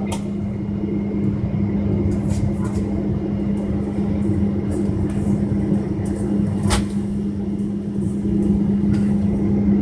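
Steady low hum and rumble inside the cabin of a Boeing 777-200ER on the ground, holding an even pitch, with a single sharp click about seven seconds in.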